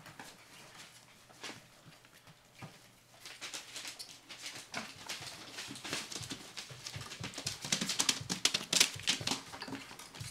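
Four-week-old Mexican Hairless puppies scrabbling about in a wooden whelping box: quick clicks, taps and scratches of small claws and paws on the board and mat. The sound gets busier from about three seconds in and is loudest near the end.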